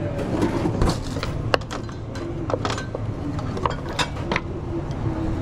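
Kitchen work clatter: a run of sharp clicks and knocks, as of utensils and cookware being handled, over a steady low rumble.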